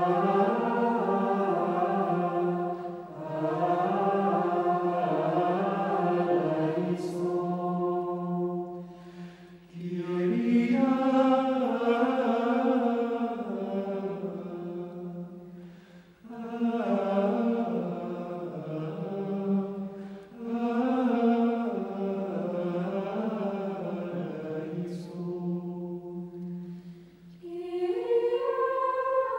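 Low voices singing a slow sacred chant, in long held phrases with short pauses between them.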